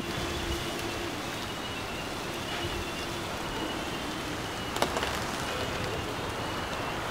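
Steady outdoor background hiss, with one sharp click about five seconds in.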